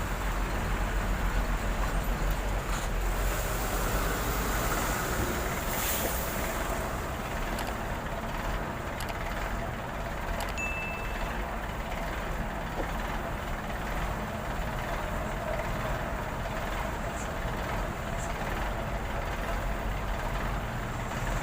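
Steady road traffic noise: engines and tyres of passing vehicles, with a continuous low rumble from heavy trucks and buses.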